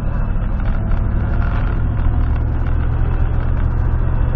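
1996 GMC pickup's V8 engine running steadily near idle, a low, even hum heard from inside the cab.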